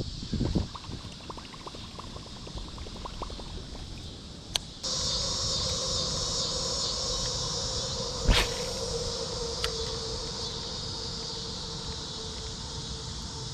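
Outdoor ambience of wind rumble and faint clicks, then after an abrupt change about five seconds in, a steady chorus of insects buzzing over a steady low hum. One sharp knock about eight seconds in.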